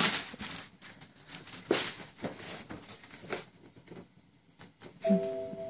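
Wrapping paper and a cardboard gift box rustling and crinkling as they are handled, with scattered light crackles and taps. About five seconds in, a short steady tone sounds for about a second.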